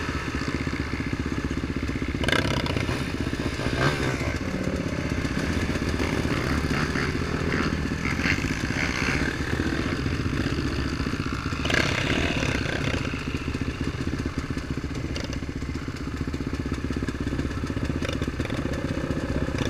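Off-road vehicle engine running continuously under way, with clattering and knocks throughout, sharpest about two, four and twelve seconds in.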